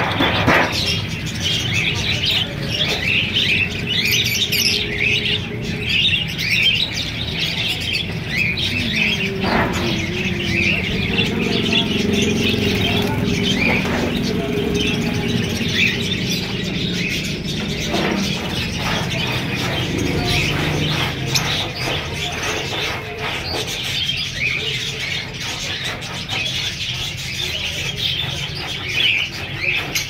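Many small caged finches chirping all at once, a dense, continuous chatter of short high chirps.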